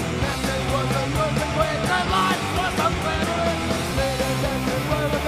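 Punk rock music with a steady beat and singing.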